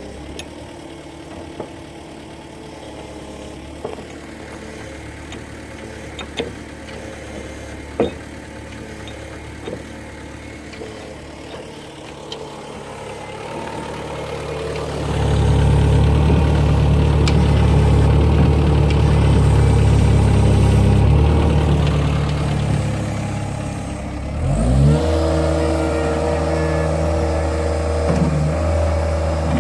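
Caterpillar 247B compact track loader's diesel engine idling with scattered clicks and knocks. About halfway through it is throttled up to a loud steady run for several seconds, then eases back. Near the end its pitch rises again as it revs and holds steady.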